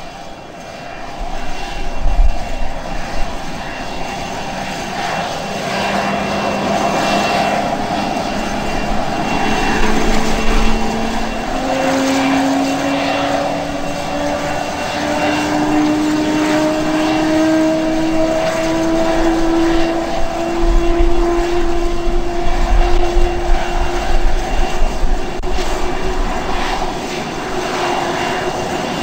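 Aircraft engine noise with a whining tone that comes in about six seconds in and rises slowly in pitch.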